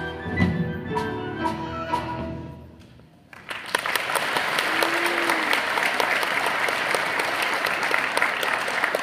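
The song ends: the last held notes of the chorus and band, with a drum hit near the start, die away over about three seconds. Then the audience breaks into steady applause that continues.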